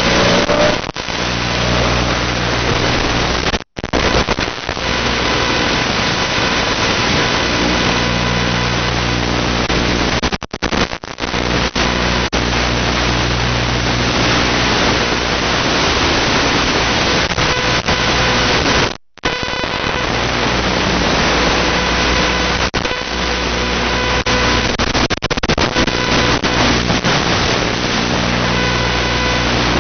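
Loud, steady static hiss with a low buzz from an analog FPV video receiver's audio channel. It cuts out completely for a moment twice.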